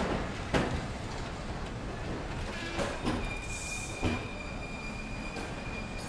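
Arriving train rolling slowly through a station: its wheels knock irregularly over the rail joints a handful of times, and a high, steady brake squeal sets in about three seconds in.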